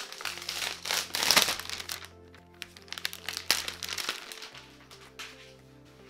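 Clear plastic protective wrap crinkling and crackling as a laptop is pulled out of it, loudest in the first second and a half and dying away after about four and a half seconds, over background music.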